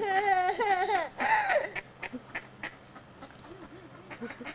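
A small boy's high, wavering laugh for about two seconds, then only faint short calls.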